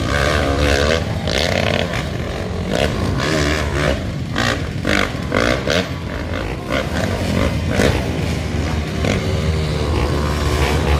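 Trail dirt bike engines revving hard on a steep dirt climb, their pitch rising and falling again and again over a steady low rumble.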